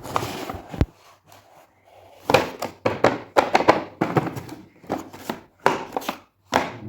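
Hands handling toy packaging: a sharp tap a little under a second in, then a quick run of short rustles and knocks.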